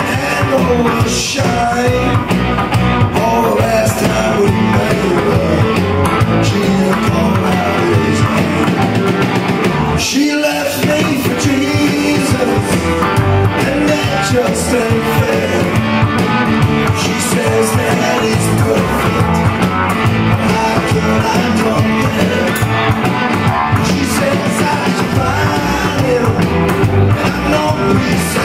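Live band playing a song on upright double bass, drum kit and electric guitar, with a man singing lead. About ten seconds in, the bass and drums drop out for a moment before the band comes back in.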